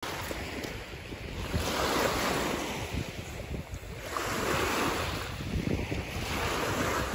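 Small lake waves washing onto a coarse-sand shore, the wash swelling and ebbing every couple of seconds, with wind buffeting the microphone.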